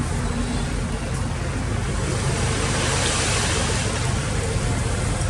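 Excavator's diesel engine running steadily with a low rumble, with a rushing hiss that swells up and fades away again around the middle.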